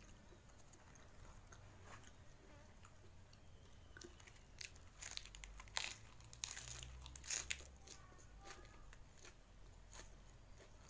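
Raw cabbage leaf being bitten and chewed, with crisp crunches that come in a cluster about halfway through.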